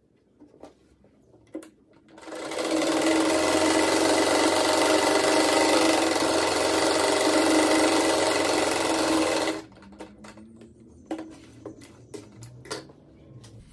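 Table-mounted sewing machine stitching a fabric strip onto a patchwork square, running steadily for about seven seconds from about two seconds in and then stopping abruptly. A few light clicks come before and after it.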